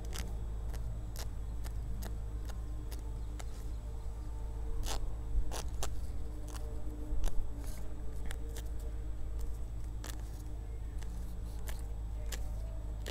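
Feathers being plucked by hand from a dead dove (huilota): irregular small clicks and scratchy tearing, a little louder about halfway through, over a steady low hum.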